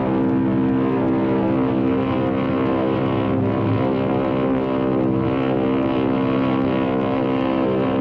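Ocean liner SS Liberté's whistle sounding one long, steady blast, deep and full of overtones.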